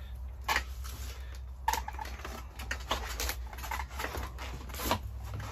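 A handful of sharp clicks and metal knocks as an electric fat-tyre bike's front wheel is lifted into its suspension fork and seated, over a steady low hum.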